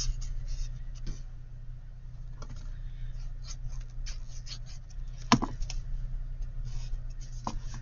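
Paper and cardstock being handled and tucked into place: scattered light taps and rustles, with one sharper tap about five seconds in, over a steady low hum.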